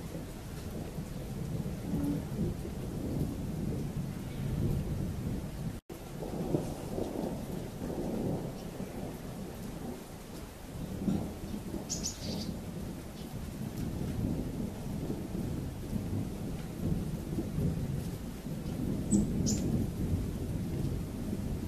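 Thunder rumbling in long, low, rolling swells that rise and fall. The sound cuts out for a moment about six seconds in, and a few short high chirps sound around the middle and near the end.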